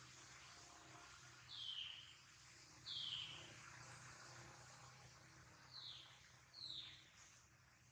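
Four short, high-pitched animal calls, each falling in pitch, spaced over a faint steady background.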